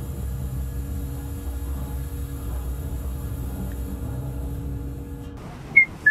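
Low, steady rumble of a ferry's bow mooring-deck machinery, with a steady hum over it, that drops away about five seconds in. Two short, high beeps follow near the end, the second slightly lower in pitch.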